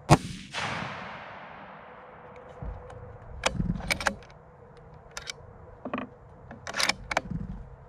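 A .308 Remington bolt-action rifle firing one shot just after the start, its report echoing away over about two seconds. Then a run of sharp metallic clicks and clacks as the bolt is worked to eject the spent case and chamber the next round.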